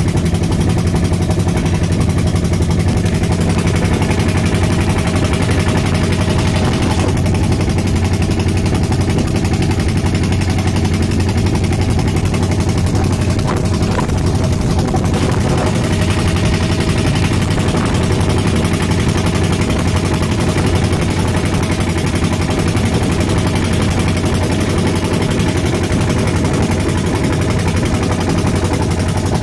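A wooden river boat's engine running steadily, a constant low drone with no change in speed.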